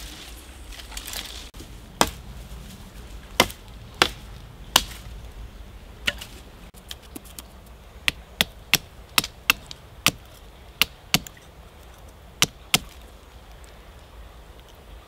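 A small hatchet chopping a point onto a green wooden stick braced against a tree trunk. Sharp single chops come a few at a time in the first half, then a quicker run of about ten from about eight seconds in.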